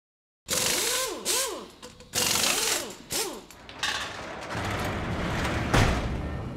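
Produced workshop sound effects: bursts of mechanical clatter with whirs that rise and fall like a power tool being triggered. Then comes a longer low rattling rumble and a single heavy hit near the end.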